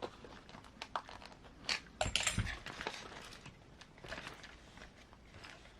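Scattered clicks and light knocks of hands handling objects, with a louder cluster of knocks and rustling about two to three seconds in.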